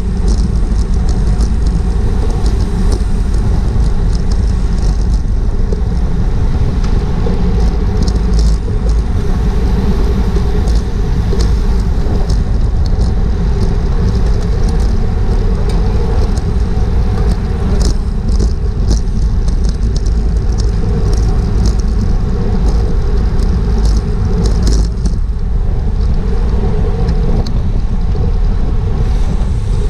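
Wind rushing over a bike-mounted action camera's microphone at racing speed: a loud, steady rumble, with scattered clicks and rattles through it.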